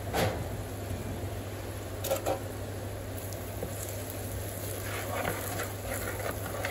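A metal spoon stirring and scraping chopped onions and spice paste in a terracotta pot. There is a single click just after the start, two more about two seconds in, and a run of small scrapes near the end, over a steady low hum and hiss.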